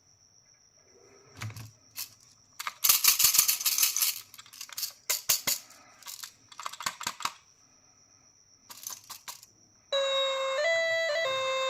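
Small hard candies rattling and clattering in plastic packaging, in several irregular bursts. About ten seconds in, a simple electronic melody starts.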